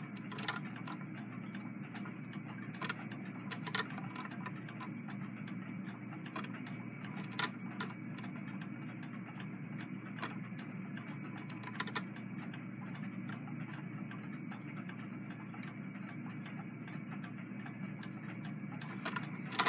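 Singer 66 lock-stitch sewing machine running slowly, stitching through thick fabric. It gives a steady run of light mechanical clicks and ticks over a low steady hum, with a few louder clicks along the way.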